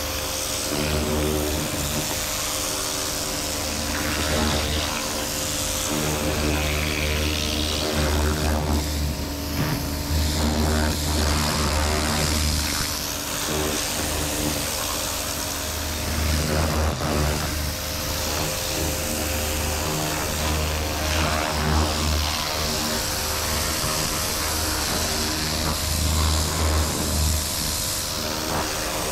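Pressure washer running, its motor humming with a hiss of water spray as the jet blasts the fibreglass deck. The hum dips briefly every few seconds.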